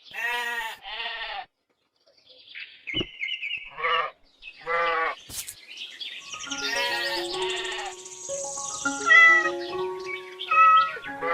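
Goats bleating in a series of separate wavering calls, two close together at the start and more a few seconds later. About halfway through, background music with a simple stepped melody comes in, and the bleats carry on over it.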